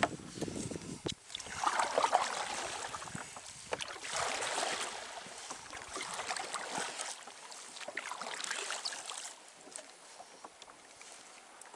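Kayak paddle strokes: water splashing and dripping off the paddle blades about every two seconds, with small clicks and drips between. The strokes stop near the end, leaving only light drips.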